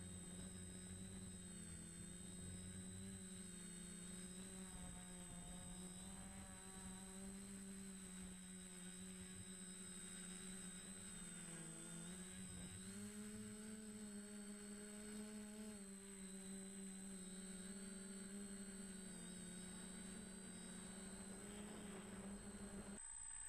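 DJI Flamewheel F450 quadcopter's four motors and propellers humming steadily in flight, heard from the camera mounted on it. The pitch dips briefly about halfway through, rises a little just after, and the hum cuts off suddenly just before the end.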